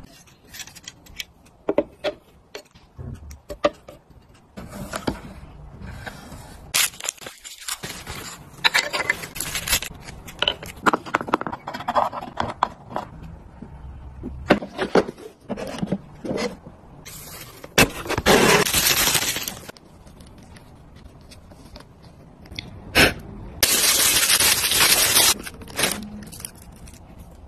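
Close handling noises of unpacking: taps, clicks and scrapes of objects being picked up and set down, between bursts of rustling packaging. Two longer rustles come in the second half, the last as a watch is drawn out of a cloth pouch in its box.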